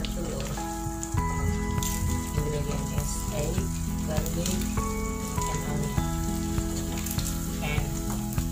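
Egg omelet frying in an oiled pan, a steady sizzle, with background music of held notes underneath.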